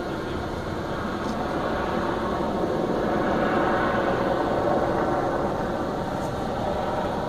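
Fire engines running steadily as their pumps feed the water streams arcing onto the fire.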